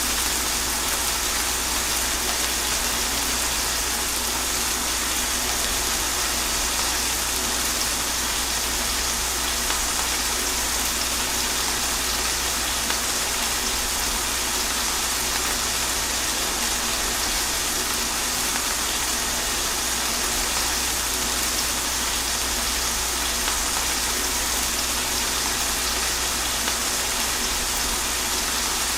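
Steady rain falling, an even unbroken hiss, with a steady low rumble underneath.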